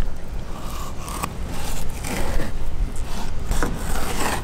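Fillet knife sliding along the skin of a mahi-mahi fillet on a plastic cutting board, skinning it, in several short scraping strokes over a steady low rumble.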